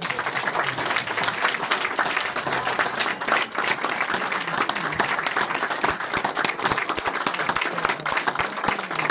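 A small group applauding, a dense steady patter of hand claps that starts suddenly and keeps up throughout, with some clapping hands close by.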